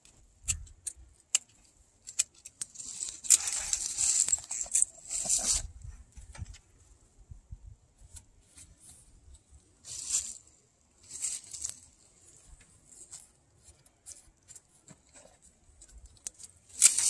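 A grapevine cane being bent down and wrapped along a trellis wire by gloved hands: bursts of rustling and scraping of wood on wire, with scattered sharp clicks between them.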